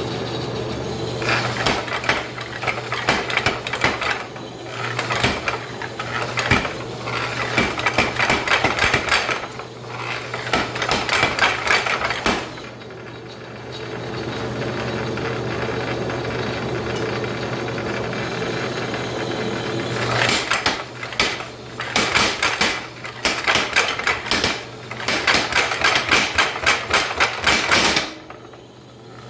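Mechanical power hammer pounding hot steel through a Brent Bailey 'Porky' flatter, in two long runs of rapid blows with a pause between them. A steady hum runs underneath throughout.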